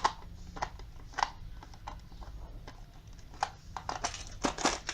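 Screwdriver clicking and scraping as screws are worked out of the back of a clock case: irregular small sharp clicks, a few spread out, then a quicker cluster near the end.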